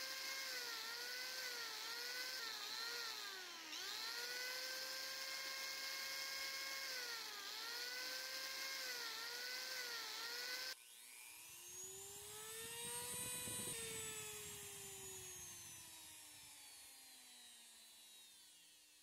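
Electric angle grinder shaping carved wood: a high motor whine that sags in pitch each time the disc bites and recovers as it is eased off. About eleven seconds in the sound changes abruptly, and the grinder's whine rises, then slowly falls in pitch and fades near the end.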